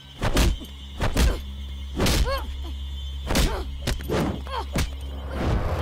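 Movie fight sound effects: a quick run of swishes and hits for punches and kicks, about a dozen strikes, over a steady low background score.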